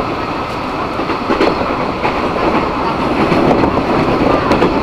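A passenger train running along the track, heard from inside the carriage: a steady rumble of the wheels on the rails with a few sharp clacks here and there.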